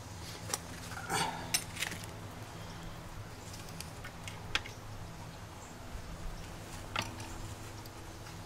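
Scattered metal clicks and clinks of a wrench working on a rusted-in engine mounting bolt, about six of them, bunched in the first two seconds, over a steady low hum.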